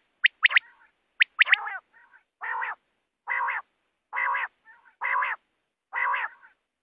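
Quail calling: a few quick, sharp, high notes, then a run of five longer, harsher calls evenly spaced about one a second.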